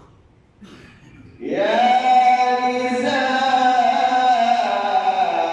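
A male reciter chanting the Quran in tajweed style with an added echo effect. About a second and a half in he begins a long, drawn-out melodic phrase that holds steady and then sinks slowly in pitch.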